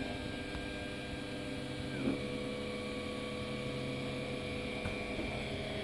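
Prusa i3 Hephestos 3D printer's stepper motors whining as it prints. The whine is a steady chord of tones that glides up at the start and changes pitch about two seconds in as the moves change.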